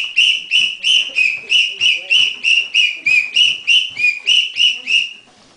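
A whistle blown in short, even blasts, about three a second, each note dipping slightly in pitch, keeping time with a jog. The blasts stop about five seconds in.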